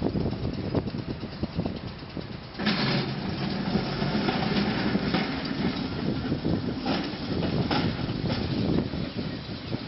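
Small single-truck electric streetcar rolling past on its track: steel wheels rumbling on the rails with a steady low hum, and a few sharp knocks as it goes, the loudest about three seconds in.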